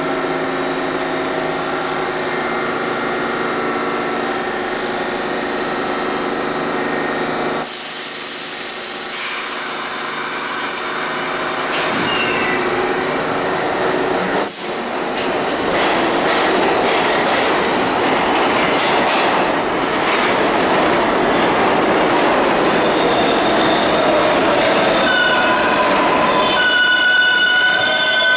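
New York City Subway R62A train pulling out of a station: a steady hum of the motors at first, then a dense rumble and rattle of wheels on rail from about halfway. Near the end come high-pitched wheel squeals.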